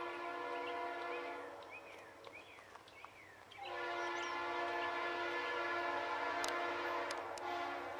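Freight locomotive's Leslie RS-3L three-chime air horn, likely on a GE Dash 8-40CW. It sounds long blasts as the train approaches: one ends about a second and a half in, and after a pause of about two seconds another long blast runs about four seconds, with a brief break near the end before the next.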